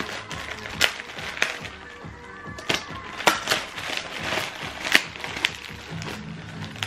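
Plastic bag wrapping crinkling and crackling in several sharp, irregular snaps as a pair of trainers is unwrapped, over a background music mix whose bass line comes in near the end.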